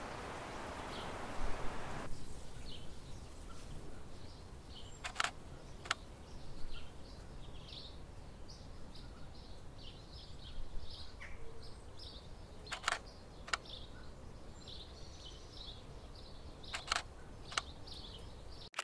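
Nikon D750 DSLR shutter firing three times on slow exposures, each a pair of sharp clicks about 0.7 s apart as the shutter opens and closes. Small birds chirp faintly throughout, and a steady outdoor hiss in the first two seconds cuts off.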